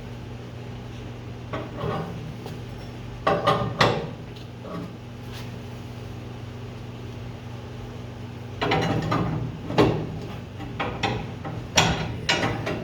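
A wrench working the threaded rod and nut of an inside coil spring compressor: several short runs of metal clicks and knocks, the busiest stretch starting about nine seconds in, over a steady low hum.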